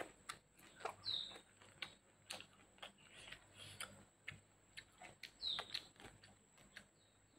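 Close-miked eating sounds: wet lip smacks and chewing clicks at irregular intervals as grilled chicken and boiled papaya leaves are eaten by hand.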